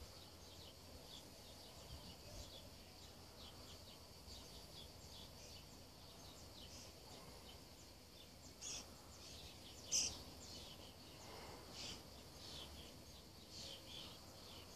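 Faint outdoor ambience of small birds chirping, short high calls repeating again and again over a steady high hiss, with one sharp click about ten seconds in.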